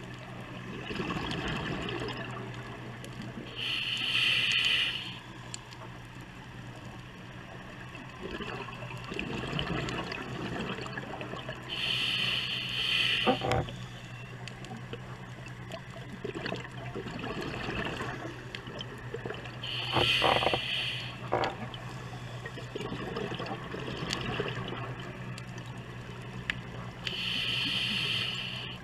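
Scuba diver breathing through a regulator underwater: a hissing burst about every eight seconds, with bubbling noise in between, over a steady low hum.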